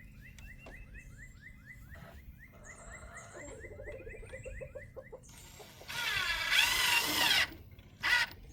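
Cordless drill/driver running at about six seconds in, its motor whine rising and falling over a second and a half as a screw is driven, with a short second pulse just after. Before it, rapid small chirps repeat for a couple of seconds.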